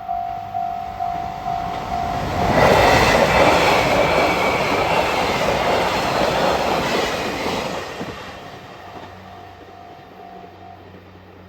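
Japanese level-crossing warning bell ringing in even pulses, a little over two a second, is drowned out about two seconds in as a train passes over the crossing with loud wheel and rail noise. The train noise fades after about eight seconds, and the bell, faint again, stops near the end.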